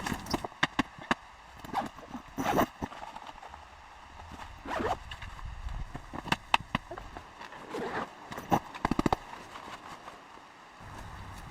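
Irregular clicks, knocks and rustles of things being handled, with a quick run of sharper knocks a little past the middle.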